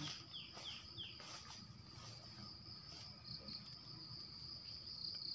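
Steady, high-pitched insect trill, with a few short falling bird notes in the first second or so.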